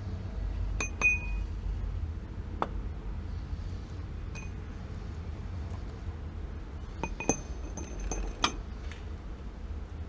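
Scattered sharp metallic clinks with a brief ring, from metal pipe fittings and tools being handled during gas valve fitting: a few near the start, one around the middle, and a cluster near the end, over a steady low rumble.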